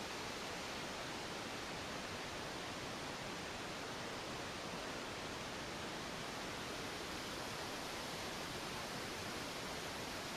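Three-tiered waterfall: a steady, unbroken rush of falling water.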